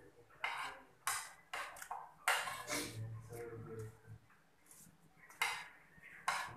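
A metal spoon scraping and clinking against a plate, in a series of short strokes, as the last bits of food are scooped up.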